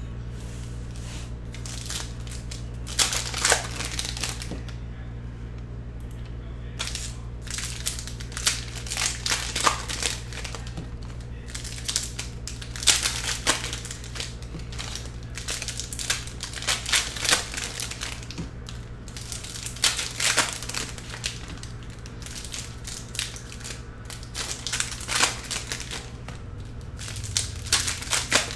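Foil wrappers of Upper Deck Artifacts hockey card packs crinkling and tearing as the packs are opened, in repeated irregular bursts.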